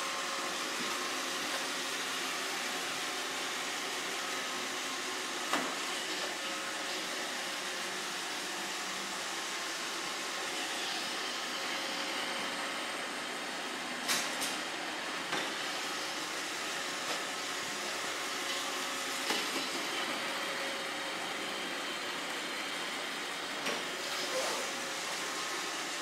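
iRobot Roomba 650 robot vacuum running steadily, its motor and brushes making a constant noise. A few short knocks break in, the loudest about fourteen seconds in.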